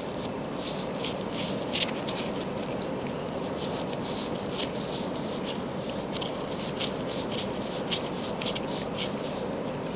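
Irregular light scratching and ticking of fingers working a small camshaft sealing ring over the shaft, over a steady background hum.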